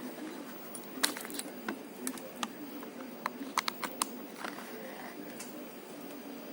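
A series of sharp, irregular clicks and taps, about a dozen over four seconds, from handling a Xiaomi camera and pressing its buttons as it fails to start. A low murmur runs underneath.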